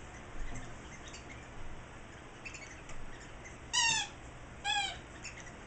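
French Bulldog puppy whining twice, two short high-pitched cries about a second apart, each dipping slightly in pitch, with a few faint clicks in between. He is fussing to be let out of the pen.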